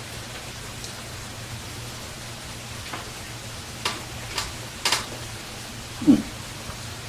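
Eating sounds: a few light, sharp clicks from about three to five seconds in over a steady background hiss, then a short low hum near the end.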